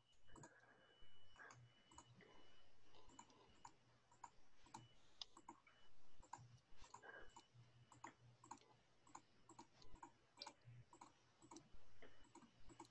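Faint, irregular clicks of a computer mouse button and keyboard keys.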